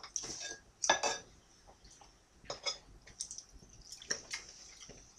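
Metal fork clinking and scraping against a plate as food is picked up to eat, a few short light clinks, the loudest about a second in.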